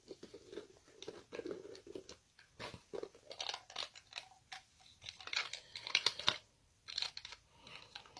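Plastic packaging of a tub of cleaning gel being unwrapped and opened by hand: irregular crinkling, tearing and clicking, busiest about five to six seconds in.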